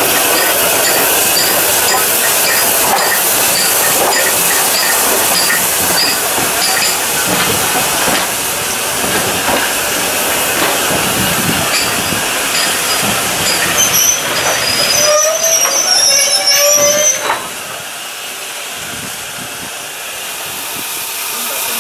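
Steam-hauled train of coaches moving past behind an LMS 'Crab' 2-6-0: a steady steam hiss, the rumble and regular clicking of carriage wheels on the rail, and a high wheel squeal for a few seconds about fourteen seconds in. After that it settles quieter.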